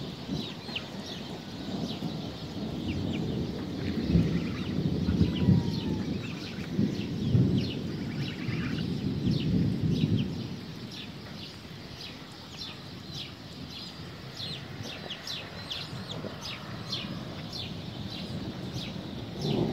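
Thunder rumbling in long rolls from about two seconds in until about halfway through, then dying away, with many short high ticks scattered throughout.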